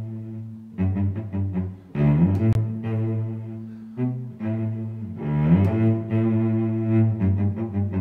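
Background music on low bowed strings: long held notes, broken by runs of short, quick strokes.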